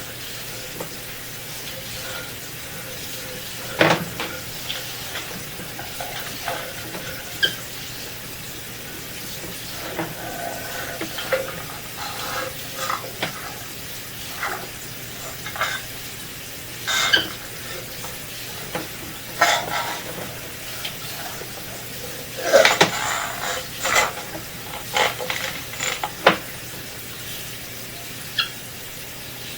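Scattered clicks, clinks and scrapes of drain-inspection camera gear being handled, busiest near the end, over a steady hiss of running water and a faint hum.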